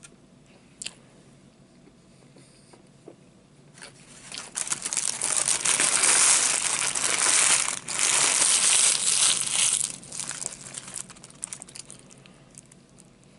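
Fast-food packaging crinkling and rustling for about five seconds from roughly four seconds in, with a brief break in the middle, then a few lighter rustles.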